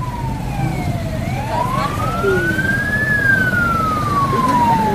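An emergency vehicle's siren wailing slowly over a low rumble. Its pitch falls until about a second in, rises for about two seconds, then falls again.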